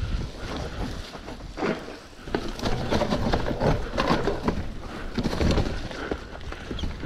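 Downhill mountain bike ridden over a rough dirt trail, picked up on a GoPro. Wind buffets the microphone at first, then from about two and a half seconds in the bike rattles and clacks in a quick, uneven run over the rough ground.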